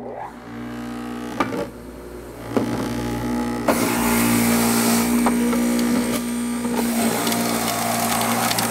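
Power Grind Pro centrifugal juicer running with a steady motor hum, grinding louder as a firm pear is pushed down the feed chute, loudest from about 4 to 7 seconds in.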